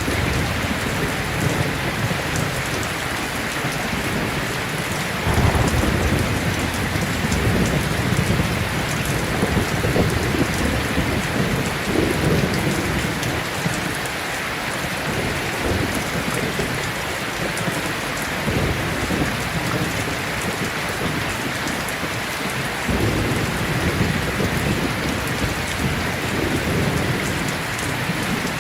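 Heavy rain falling steadily, a dense even hiss. A low rumble swells in suddenly about five seconds in and rolls on for several seconds, and comes again near the end.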